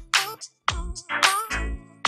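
Background music with a beat, deep bass notes and a bending electronic melody, with a brief break about half a second in.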